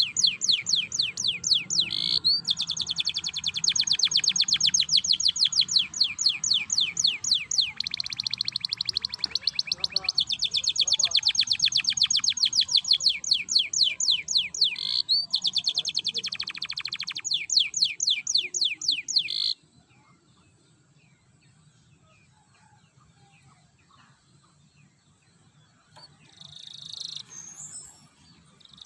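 Domestic canary singing long, fast, rattling trills in the style canary keepers call 'ngerek', roll after roll, stopping abruptly about two-thirds of the way through. After a few seconds' pause it gives a short burst of notes, then starts singing again near the end.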